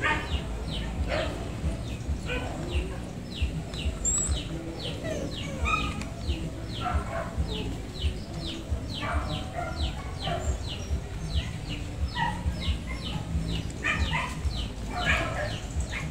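Birds chirping continuously: a steady run of short, falling notes, several a second, over a low rumble.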